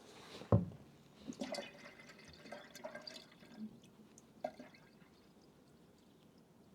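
Coolant being poured into a Ford 4000 tractor's radiator during refilling, heard as scattered drips and glugs, with one sharp knock about half a second in; it dies away after about four and a half seconds.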